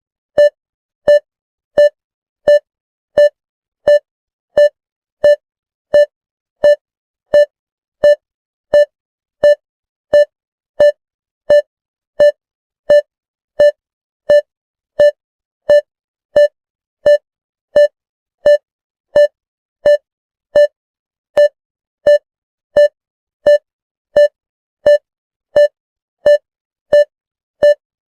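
ICU patient monitor beeping its heart-rate tone: short, identical beeps at a single pitch, evenly spaced at about three beeps every two seconds (roughly 85 a minute). Each beep marks a detected heartbeat, so the steady spacing signals a regular pulse.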